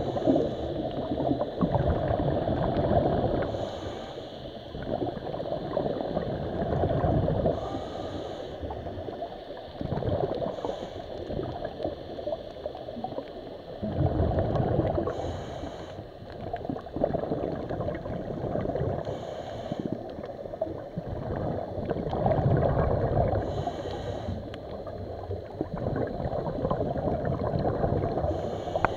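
Water gurgling and bubbling, swelling and easing every few seconds, with a short hiss recurring about every four seconds.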